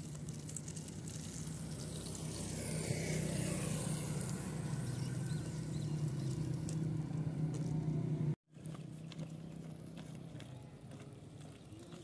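A motor vehicle engine running with a steady low hum, growing louder over the first eight seconds. The sound drops out completely for a split second about eight seconds in, and the hum carries on fainter after it.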